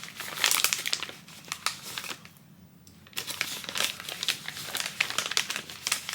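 Plastic snack packaging crinkling and crackling as it is handled, in two spells with a short pause between them about two seconds in.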